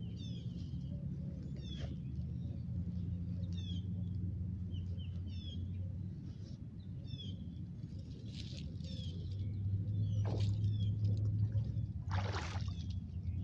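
Birds chirping, short high falling calls repeated about once a second, over a steady low hum. A brief swish comes about ten seconds in and another near the end.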